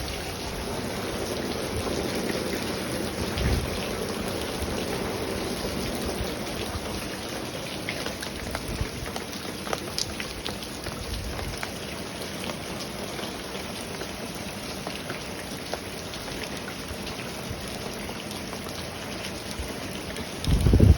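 Heavy rain pouring steadily, with scattered drops ticking on nearby surfaces. A few brief low rumbles come through, and a loud low thump sounds near the end.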